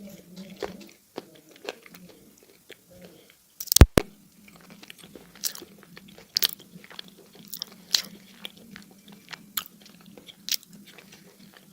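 Close-miked biting and crunching of dry clay. It gives a loud sharp snap about four seconds in, then irregular crisp crunches roughly every half second.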